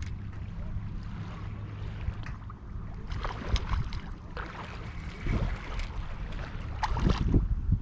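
Wind buffeting the microphone as a steady low rumble, with a few scattered short clicks and rustles.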